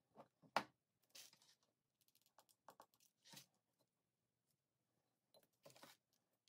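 Faint rustling and light clicking of rhinestone mesh ribbon being pressed and wrapped around a ceramic jar, with one sharp tap about half a second in and a longer rustle near the end.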